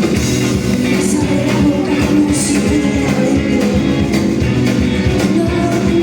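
Live concert music: a woman singing over guitar, with a steady beat.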